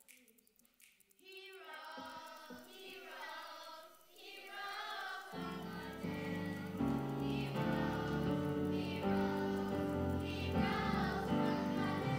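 A young children's choir singing. A fuller instrumental accompaniment with a strong bass comes in about five seconds in, after a quiet first second.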